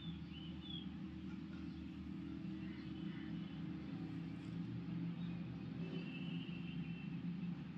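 SGG industrial sewing machine running steadily, stitching a seam through a blouse panel and its lining.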